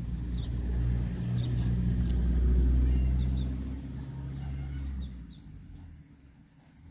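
Low engine hum of a passing vehicle, swelling and then fading away about five seconds in, with a few faint short high chirps over it.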